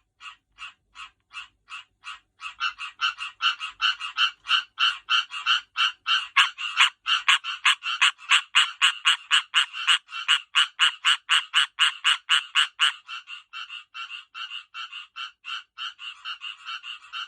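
Male tree frogs giving their advertisement call before breeding: a fast, even run of short croaking notes, about four or five a second. The calling grows louder and busier about two seconds in and drops back about thirteen seconds in.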